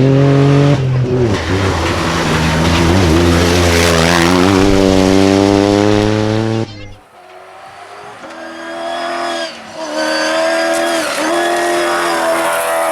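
Rally vehicle engines running hard at speed, their pitch shifting as they rev. About seven seconds in, the sound cuts abruptly to a second vehicle whose engine builds up and revs.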